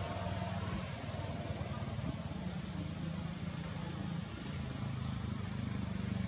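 An engine running steadily, a low even hum with a steady hiss over it.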